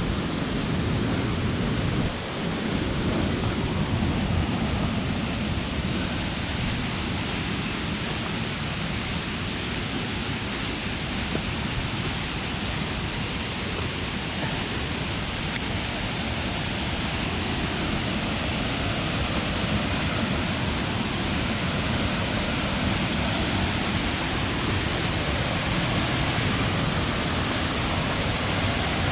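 A waterfall's water rushing, a steady, even noise with no breaks.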